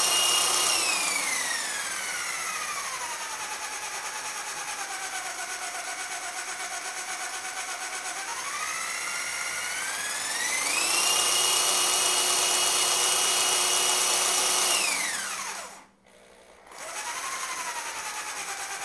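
Electric drill whining as it spins a Model T Ford engine over with the head off, working the valves, springs and lifters up and down. It slows after a couple of seconds, speeds up again about ten seconds in, winds down and stops for a moment near the end, then restarts at a lower speed.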